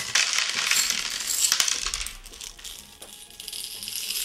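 Small hard candies rattling and pouring out of a clear plastic canister, a dense clatter of tiny clicks. It eases off a little past halfway through and picks up again near the end.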